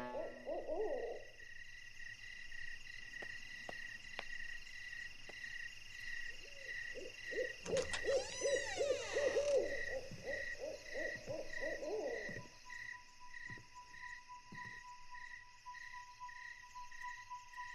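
Night ambience: a high insect-like chirp pulsing steadily about one and a half times a second, with a series of owl-like hoots through the middle. A thin steady tone comes in about two-thirds of the way through.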